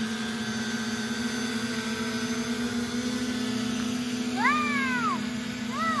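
Parrot Anafi AI quadcopter's propellers humming steadily as the drone hovers and flies low. Over the hum, two short cries rise and then fall in pitch, about four and a half seconds in and again near the end.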